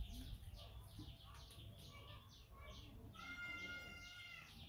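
Faint birds chirping in quick, repeated falling notes. About three seconds in, a single steady, high-pitched animal call is held for about a second.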